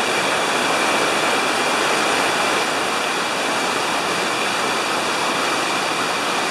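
Whitewater of a river rapid rushing steadily: a dense, even noise of churning, breaking water.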